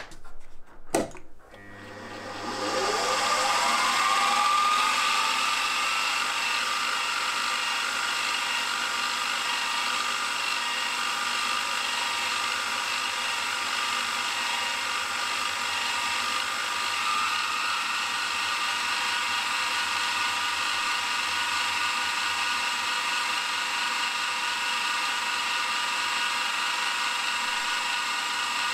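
Milling machine spindle drilling with a 1.2 mm drill bit: two clicks, then the spindle spins up with a rising whine and runs steadily as the bit drills a pin hole into the crank web.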